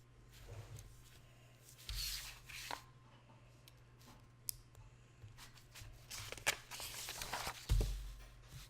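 Hands handling small plastic Lego pieces: short bursts of rustling and a few sharp clicks, once about two seconds in and again near the end.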